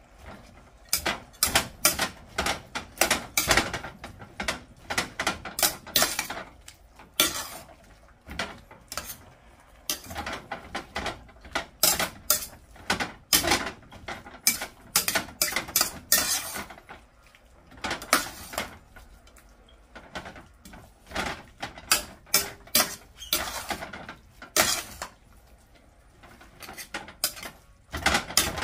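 Slotted metal spatula clanking and scraping against a large stainless-steel pan while tossing stir-fried noodles, in quick irregular runs of strikes broken by a few short pauses.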